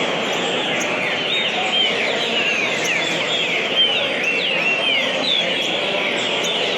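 Songbirds singing: many short whistled notes rising and falling in pitch, densely overlapping, over a steady background hiss.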